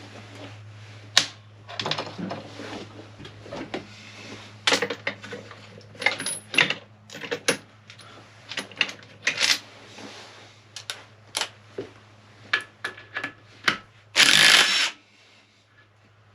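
Hand tools working on a motorcycle engine: irregular metallic clicks and clinks of a socket wrench and parts as bolts are undone. Near the end comes a louder rasping burst just under a second long. A steady low hum sits underneath throughout.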